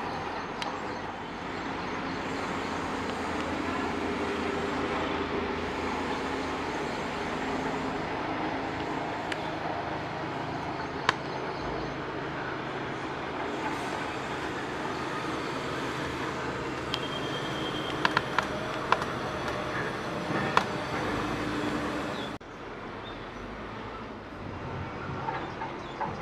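Steady background hum of traffic, with a few sharp clicks; the noise drops suddenly near the end.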